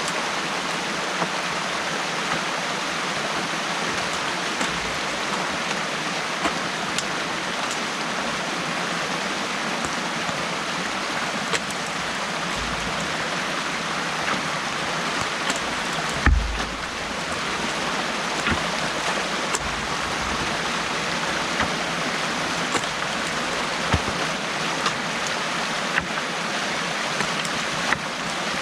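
Water rushing steadily through a breached beaver dam, with scattered small clicks and splashes and one dull thump about halfway through.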